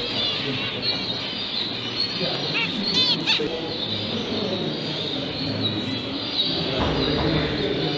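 Many caged zebra finches calling together: short overlapping chirps, with a louder run of repeated calls about three seconds in.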